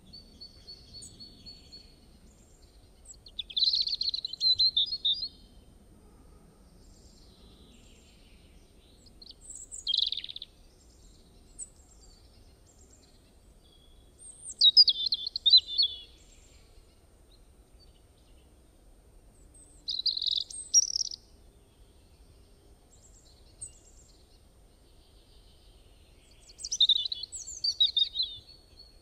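A songbird singing: five short phrases of high chirping song, spaced several seconds apart, over faint low background noise.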